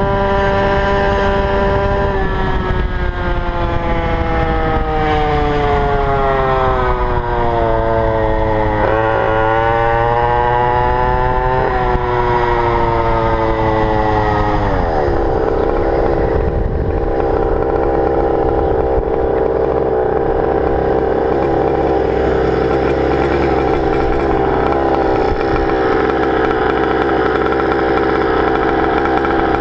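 GoPed GP460 two-stroke engine running at high revs: it holds a steady high note, then slides down in pitch over several seconds with two short upward jumps, and about halfway through drops to a lower, rougher steady note.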